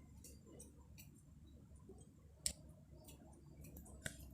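Faint handling sounds with a few short clicks, the sharpest about two and a half and four seconds in: olives being dropped into a jar.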